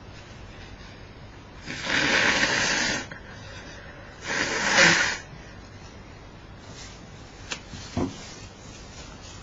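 A person blowing their nose hard twice, each blow a noisy blast lasting about a second. Two short knocks follow near the end.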